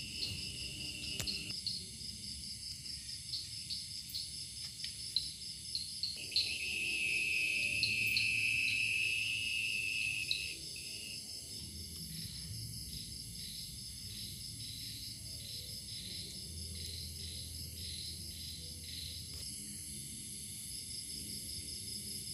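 Night chorus of crickets and other insects: several steady high-pitched trills layered with rapid, regular chirping. A louder, lower trill sets in about a quarter of the way through and stops abruptly about halfway.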